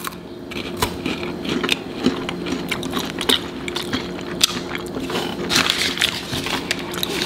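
Close-miked biting and chewing of Kit Kat Roasted Almond chocolate-coated wafer bars: a dense, irregular run of small crackly mouth clicks.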